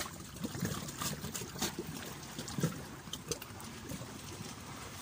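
Shallow seawater lapping and sloshing close to the microphone, with small irregular splashes in the first three seconds, then steadier and a little quieter.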